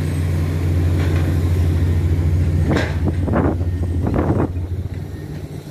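An engine idling steadily: a low, even hum that drops in level about four and a half seconds in.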